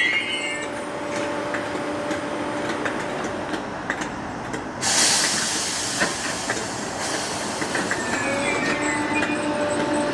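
Merseyrail electric multiple unit running at the station: a steady electric hum over wheel noise and the click of wheels over rail joints. A burst of air hiss comes about five seconds in and lasts about two seconds, and a brief high wheel or brake squeal comes near the end.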